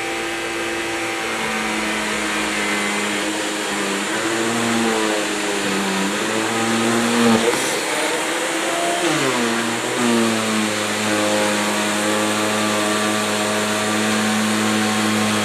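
Hoover Sensotronic System 50 canister vacuum cleaner running with its Electro Kinetic power nozzle: a steady rush of air under a motor whine that dips and rises in pitch several times, most sharply about nine seconds in.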